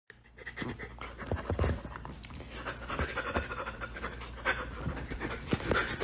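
An animal panting, with irregular scuffing and rustling noises.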